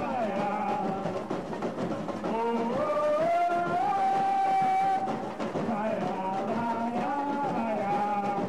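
A samba school bateria playing a samba-enredo, drums and metal shakers driving under a lead singer's voice. The singer holds one long note in the middle, then the melody moves on.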